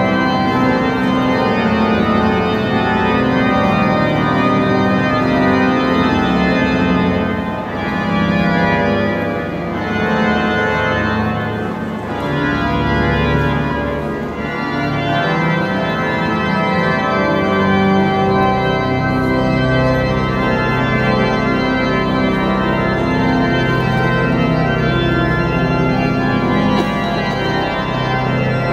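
The great pipe organ (Grand Orgue) of Notre-Dame de Paris playing loud, full sustained chords in the cathedral, the sound dipping briefly a few times near the middle.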